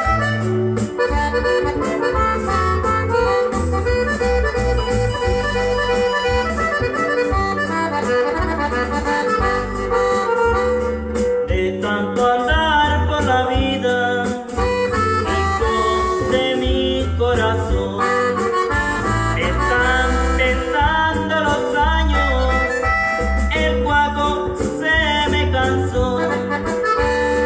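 Norteño music with an accordion-led melody over a bass line. A man's voice comes in singing along through a handheld microphone a little under halfway through.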